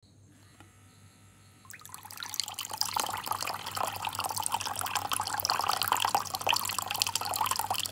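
Water from a homemade automatic tap's thin spout splashing onto a hand held under it, starting about two seconds in once the hand triggers the flow, and running steadily after that.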